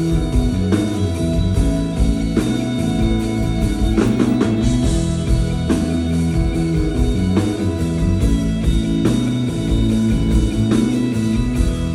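Live rock band playing, electric guitar to the fore over bass and drum kit, as heard in a concert hall.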